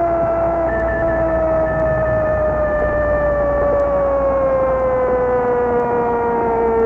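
A long droning tone with several overtones, gliding slowly and evenly down in pitch, over a low hum.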